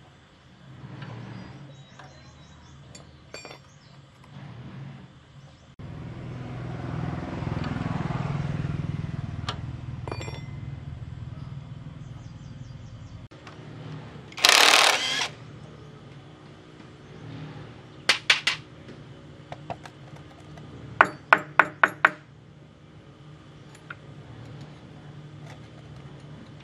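Cordless impact wrench on engine bolts: one run of about a second, then short trigger bursts, three in a row and a little later five quick ones. Before that, light metal tool clinks and a low rushing sound that swells and fades over several seconds.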